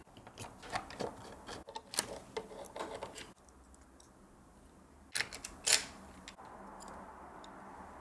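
Screwdriver backing out the screws of the AM4 CPU cooler retention bracket on a motherboard, with small clicks and ticks of the screws and plastic bracket for about three seconds. Two sharper clicks follow about five seconds in.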